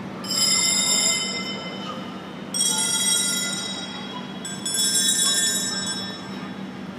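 A high metallic bell rings three times, about two seconds apart. Each ring starts sharply and dies away over about a second.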